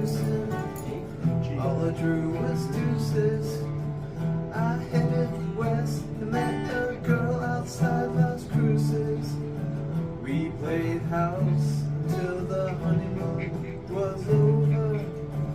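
Music: an instrumental passage of a song on acoustic guitar, a melody line bending and moving over steady chords.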